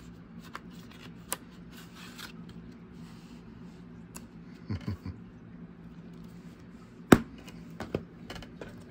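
Plastic Blu-ray case handled over a wooden table: light rubbing and scattered clicks, with one sharp knock about seven seconds in and a few smaller taps after it.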